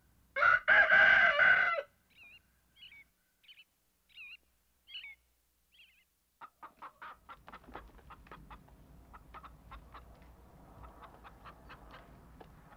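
A rooster crows once, loudly, for about a second and a half near the start. A few faint bird chirps follow, then from about halfway on hens cluck in quick short notes.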